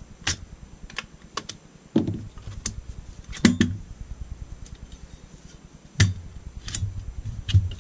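Irregular sharp metal clicks and a few duller knocks as an AR-15 is broken down: the takedown pins are worked and the upper receiver is pulled off the lower and set aside.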